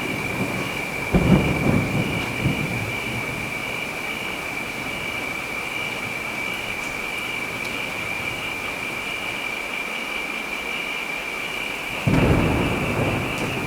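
Steady rain falling, with two rolls of thunder: one breaks about a second in and fades, the other starts near the end. A steady high tone runs underneath the rain.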